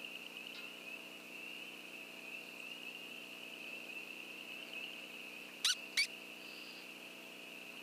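Electronic predator caller (ICOtec Nightstalker) playing a steady, high-pitched rodent distress squeal to lure coyotes, with two short, louder rising squeaks about six seconds in.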